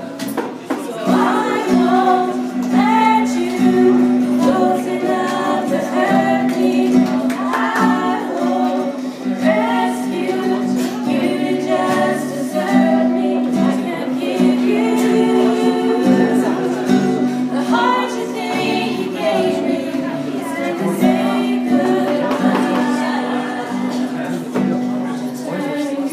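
A woman singing a song live, accompanied by an acoustic guitar.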